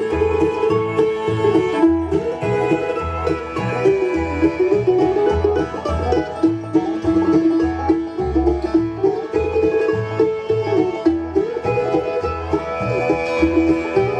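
Instrumental break of a bluegrass song: banjo picking a steady rhythm with guitar, and a fiddle-like bowed line carrying the melody.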